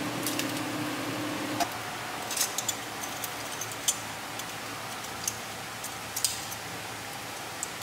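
Metal tongs clicking and scraping against a wire-mesh air fryer basket as chicken wings are turned, a scattered series of light clicks. A low appliance hum cuts off about one and a half seconds in.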